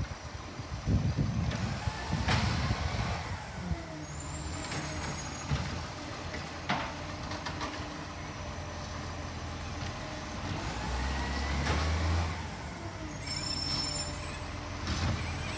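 Garbage truck's diesel engine running, rising and falling in pitch twice. There are a couple of sharp knocks and bursts of air-brake hiss.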